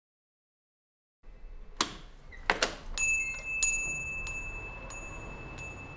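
Café background ambience fading in about a second in: a low steady hum with a couple of sharp clinks, then a small bell struck twice about half a second apart and left ringing.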